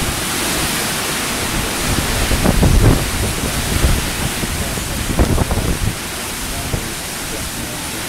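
Hurricane wind and heavy rain: a steady rushing hiss, with gusts buffeting the microphone in low rumbles, strongest between two and a half and three seconds in and again around five seconds.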